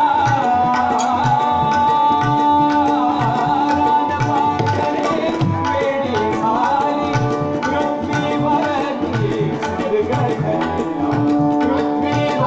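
Natya sangeet accompaniment: a reed organ holding steady chords and melody notes over a tabla keeping a brisk rhythm.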